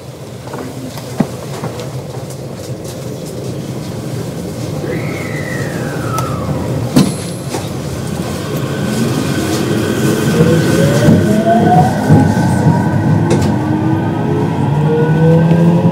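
JR West 521 series electric train with a Toshiba IGBT-VVVF inverter pulling away from a stop. The motor whine rises in pitch and loudness as the train gathers speed. A tone glides down about five seconds in, and there is a sharp knock about seven seconds in.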